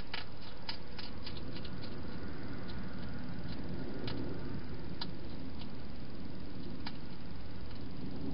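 European hedgehog eating from a bowl in a plastic feeding box: a quick run of small crunching clicks in the first two seconds, then scattered single clicks, over a steady hiss.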